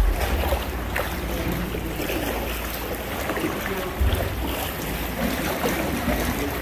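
Sea water lapping and splashing around a kayak, with wind buffeting the microphone in low rumbling gusts at the start and again about four seconds in.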